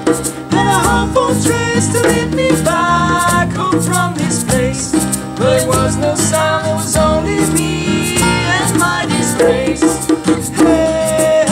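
A group of voices singing a song, accompanied by a strummed acoustic guitar and an electric bass, with a steady ticking beat.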